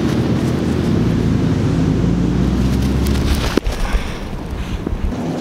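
Wind buffeting the microphone, a loud steady low rumble, with a sharp click about three and a half seconds in after which the rumble is lighter.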